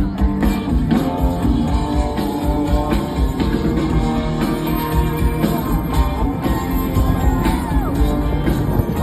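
A rock band playing live through a concert PA, with electric guitars and a drum kit, heard from within the audience.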